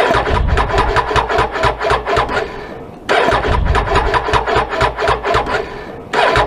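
Motorcycle electric starter cranking the engine without it firing, in three attempts of about five turning-over strokes a second, each tailing off: the sound of a weak or flat battery.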